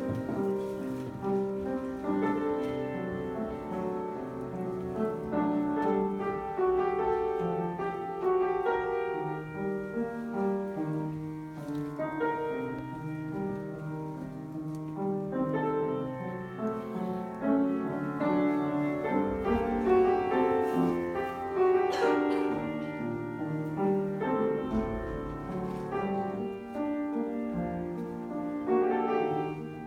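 Piano music playing a song's instrumental introduction, with no singing.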